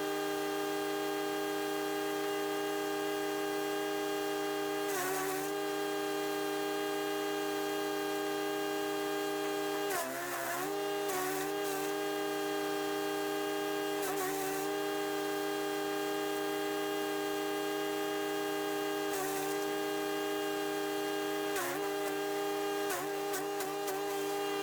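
Chipease D1500E wood chipper's 420 cc four-stroke engine running at a steady speed, its pitch dipping briefly several times as branches are fed in and chipped, each dip with a short burst of noise.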